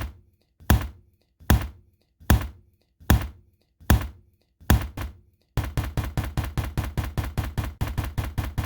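A series of heavy, evenly spaced impacts, about one every 0.8 seconds, that speed up to a fast run of about five a second for the last three seconds.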